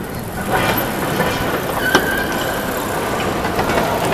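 Steady rumble of vehicle noise, with a single sharp click about two seconds in.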